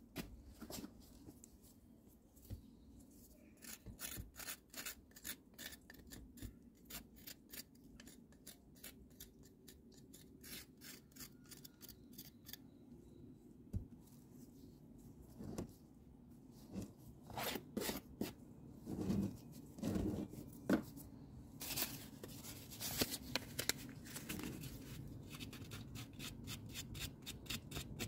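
A hand tool scraping and rubbing the surface of a cast concrete ornament in quick gritty strokes, about four a second at first, then louder and more irregular strokes after the middle, loosening concrete dust.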